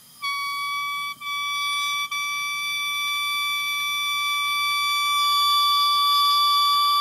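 Oboe reed blown as one steady, loud high note with bright overtones, breaking off twice for an instant in the first two seconds and growing slightly louder about five seconds in. Its pitch sits at a flat D, which is a good sign for the reed at this stage.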